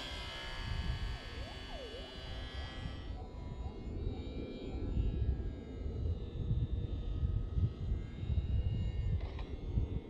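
Small brushless electric motor and propeller of a lightweight RC slow-flyer whining steadily, dropping away about three seconds in, over a low uneven rumble.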